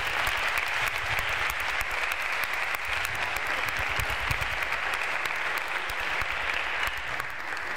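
Lecture-hall audience applauding, a dense patter of hand claps that thins out near the end.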